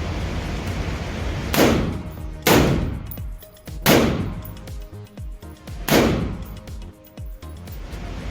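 Four single gunshots from an 5.56 AR-15 pistol with an 11.5" barrel, fired at uneven intervals of about one to two seconds, each with a ringing echo that dies away.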